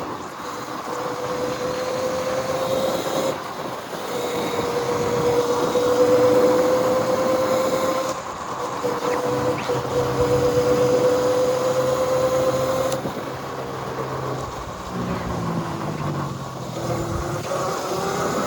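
Electric bike's motor whining while riding, its pitch rising slowly as it gathers speed, in three stretches broken briefly about 3 and 8 seconds in, and stopping about 13 seconds in, over rushing road noise. In the last few seconds a lower vehicle engine sound takes over.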